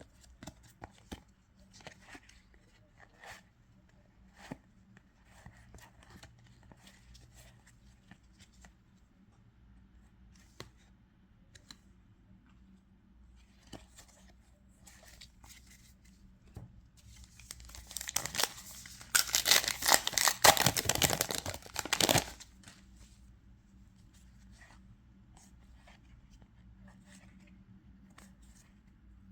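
Light rustling and clicks of handling, then, about 18 seconds in, a loud tearing of a trading-card booster pack wrapper being ripped open, lasting about four seconds.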